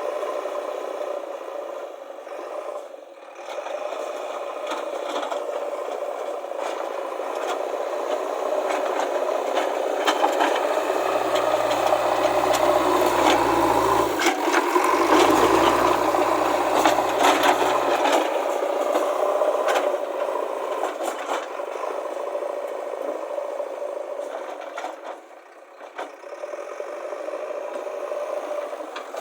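JCB backhoe loader working: its diesel engine runs under load while gravel scrapes and rattles against the bucket as it is pushed and levelled. The sound swells in the middle, where a deep engine rumble comes in, then eases off again.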